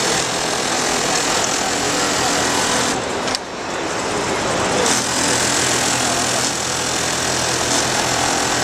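Jooke automatic pocket-setter sewing machine stitching a pocket, the needle running steadily; about three seconds in it eases off with a sharp click, then runs on again.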